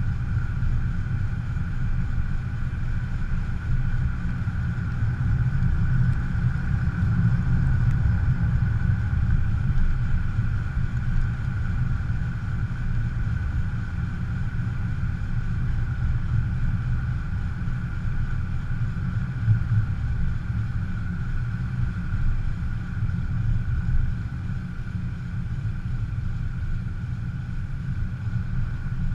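Fiat 500 Abarth driving at steady speed: low road and tyre rumble with a faint steady whine from the wheel, which the owner takes for either a bad wheel bearing or brake pads dragging on the rotor.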